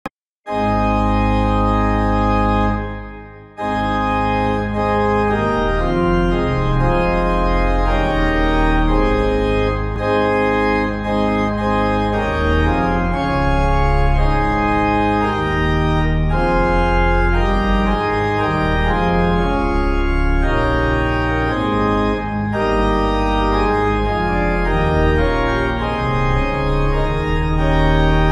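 Organ playing sustained chords. It fades out briefly about three seconds in, then comes back in.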